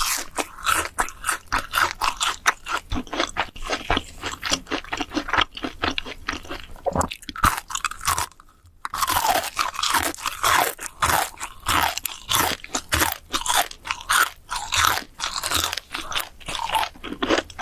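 Crisp food crunching close to the microphone in rapid, crackly bites and chews, with a short pause about eight seconds in.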